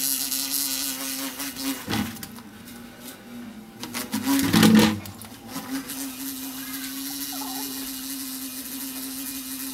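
Large black bee buzzing while trapped inside an upturned clear plastic container: a steady low drone that fades for a second or two, then about four and a half seconds in turns loud and rough for about a second as the dog lunges at the container.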